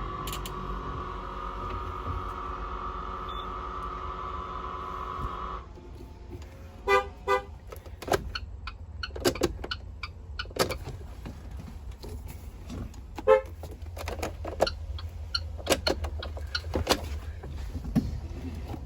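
School bus horn sounding in one long steady blast that cuts off about six seconds in, then two short toots a second later. After that come scattered sharp clicks and knocks.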